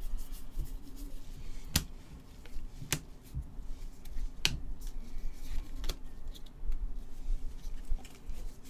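Trading cards and packs being handled with gloved hands: a few sharp clicks and light rustling, over a faint steady hum.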